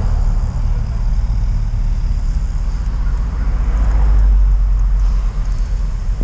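Low, steady rumble of wind buffeting the camera microphone while moving along the road, swelling briefly about four seconds in.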